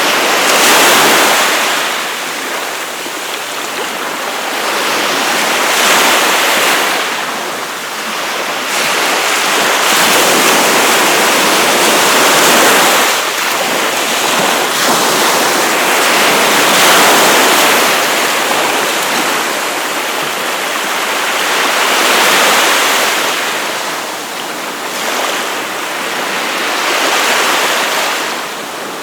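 Surf on a beach: waves breaking and washing in a continuous rush that swells and eases every few seconds.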